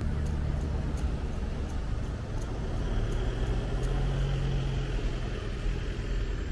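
Low steady rumble of road traffic, with a vehicle's engine hum swelling about three seconds in and fading away before the end.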